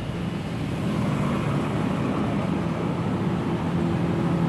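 Steady traffic noise with a low engine hum running underneath.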